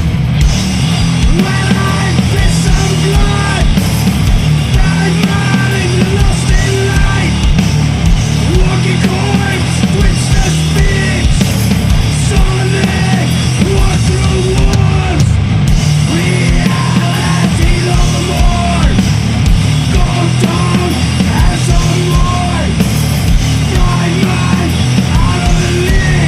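Sludge metal: heavy, distorted band music with drums, loud and dense throughout.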